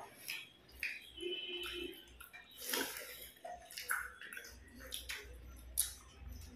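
Eating by hand: wet squishing as fingers mix rice and pull apart fish head on the plates, with mouth smacks, heard as scattered short clicks and smacks.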